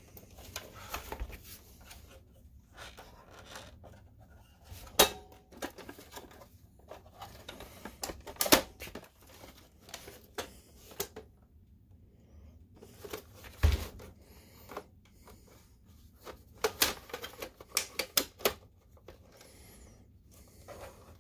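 Plastic clicks and knocks of a BenQ MH741 projector's top cover being unclipped, lifted off and handled. Scattered sharp clicks, a dull knock about two-thirds through, and a quick run of clicks near the end.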